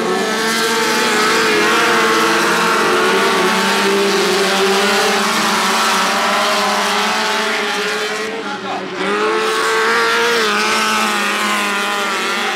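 Engines of a pack of dirt-track speedway race cars running together at high revs, several pitches overlapping and wavering up and down as they race. About two thirds of the way through the sound dips briefly and one engine's pitch falls, then picks up again.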